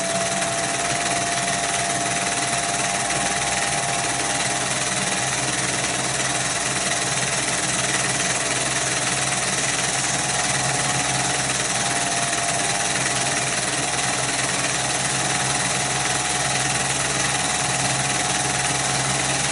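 Pathé (Pathescope) 200B 9.5mm cine projector running with film threaded: a steady mechanical whirr with a motor whine that rises near the start as its speed is turned up, then holds steady.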